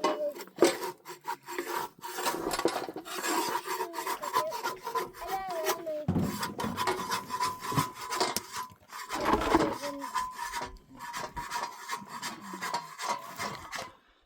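Rough rubbing and scraping, stroke after stroke at an irregular pace, as of something worked by hand against a rough or wooden surface.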